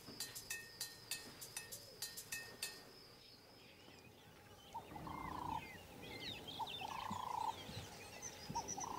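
Marimba music fading out during the first few seconds, then wild birds calling: small birds chirping, and a louder bird giving a call of under a second three times, about two seconds apart.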